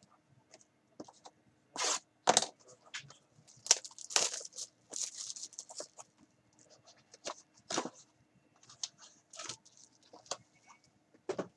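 Plastic shrink wrap being torn and crinkled off a sealed trading-card box, with clicks and scrapes of the cardboard box being handled and opened. Irregular sharp crackles throughout, the loudest around two and four seconds in.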